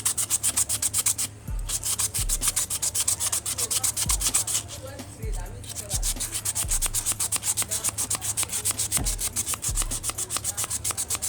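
A brush scrubbing a rusty part of a car AC compressor by hand, in quick back-and-forth strokes several a second, pausing briefly about a second in and again around the middle. A few soft low knocks come in between the strokes.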